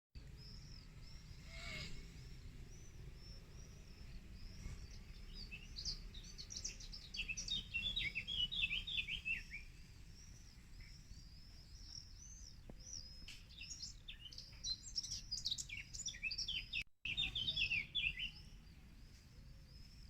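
Birds chirping and singing in short, high calls, with denser bursts of rapid chirps now and then, over a faint low rumble.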